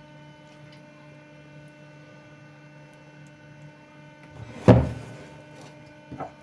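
Steady electrical hum, then about three-quarters of the way through a single loud knock as a wooden cutting board is set down on the kitchen counter, with a lighter knock near the end.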